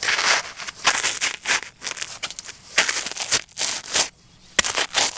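Hard pretzels crunching and crackling as Breather Wright side-zip dress boots stomp and grind them. It comes as an irregular run of crushing crunches a few tenths of a second apart, with a short lull about four seconds in, then a sharp snap and more crunching.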